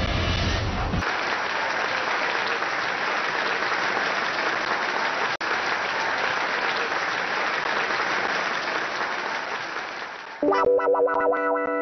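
A group of people applauding, a dense, steady clapping that starts about a second in and lasts about nine seconds. Near the end it gives way to synthesizer music with held chords.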